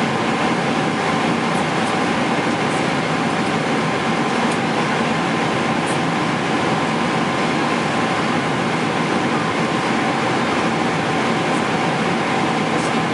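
Boeing 777-300ER cabin noise in cruise: a steady, even rush of air and engine noise with two faint steady tones running through it.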